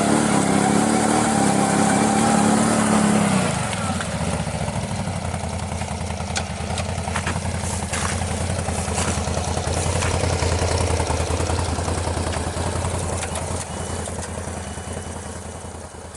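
ATV (quad) engine running at higher revs, then dropping to a lower, steady speed about three and a half seconds in, and fading near the end.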